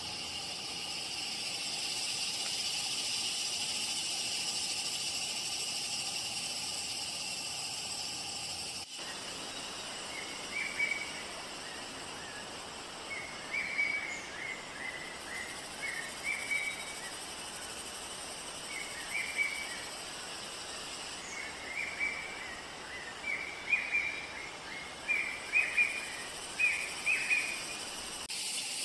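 Steady high insect drone for the first several seconds, then, after an abrupt cut, an indigo flycatcher's short high chirps in quick clusters over a steady hiss, coming more often toward the end.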